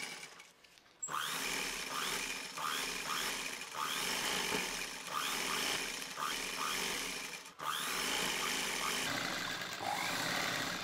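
Sewing machine running as it stitches a folded bias strip into piping. It starts about a second in, stops for a moment about three-quarters of the way through, then runs again.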